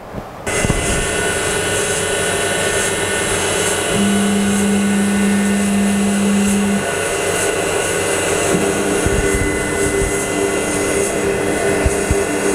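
CNC-converted Sieg X2 mini mill starting up suddenly about half a second in and then running steadily, its spindle turning a 19 mm end mill. A steady low hum joins for about three seconds near the middle.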